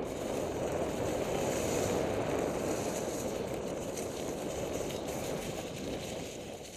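Mountain bike rolling quickly down a forest singletrack: the tyres crunch over dry leaf litter, mixed with wind rushing over the on-board camera microphone. The noise is steady and eases off near the end.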